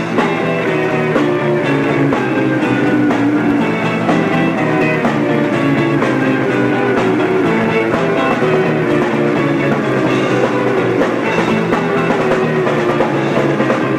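Live rock band playing an instrumental passage, with an electric guitar picking a run of short melodic notes over steady low accompaniment.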